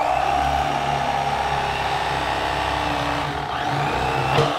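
Corded electric fillet knife running with a steady motor buzz as its reciprocating blades slice a crappie fillet away from the skin. There is a short knock near the end.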